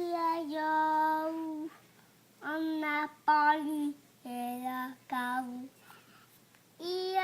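A young child's voice singing out a run of long, drawn-out notes, each held at a steady pitch, about five in a row with short breaks between them and another starting near the end.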